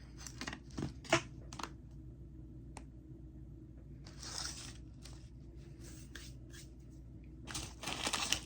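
Plastic snack packaging being handled and opened: scattered rustles and clicks, a short tearing rasp about four seconds in, and steady crinkling near the end.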